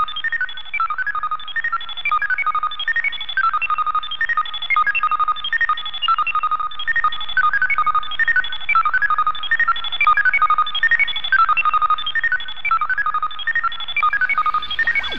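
Electronic telemetry-style data beeps: a rapid, unbroken run of short tones hopping between a few pitches, like a signal sent over a radio link.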